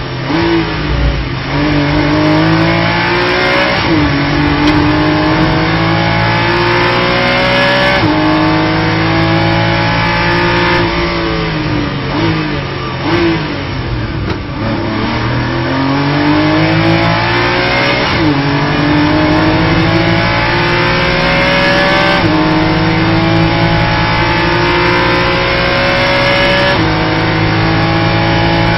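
Porsche Cayman GT4 Clubsport MR race car's flat-six engine heard from inside the cockpit, revving up through the gears with sharp pitch drops at each upshift. About halfway through, the revs fall away as the car brakes and downshifts for a slow corner, then climb hard through the gears again down the following straight.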